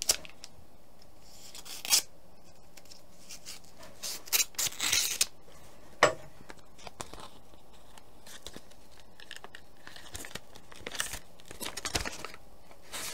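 A paper envelope being slit open with a puukko knife and torn, with rustling and crinkling in several short bursts. About six seconds in there is a single sharp knock as the knife is set down on the wooden table, and near the end more paper rustling as the envelope is pulled open.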